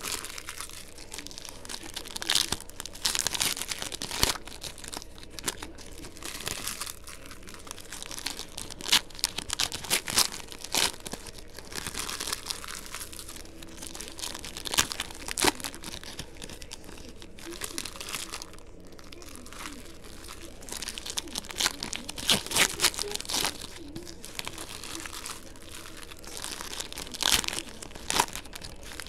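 Football trading-card pack wrappers crinkling and being torn open, with cards shuffled and flicked through by hand. The rustling and crackling is irregular, with several louder bursts.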